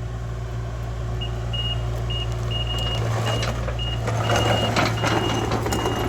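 Diesel engine of a piece of excavation equipment running, with its backup alarm beeping at a single high pitch from about a second in. Crunching and scraping noise from about halfway through, as the machine moves over the dug ground.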